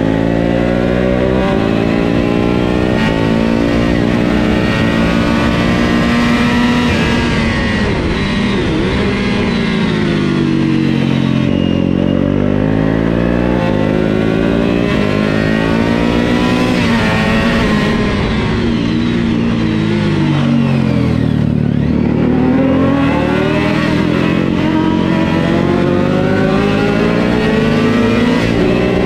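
A 400 cc supersport racing motorcycle's engine heard from onboard at race pace. It revs up through quick gear changes, then drops in pitch twice, about a third and two-thirds of the way through, as the bike slows for corners, and climbs again as it accelerates out.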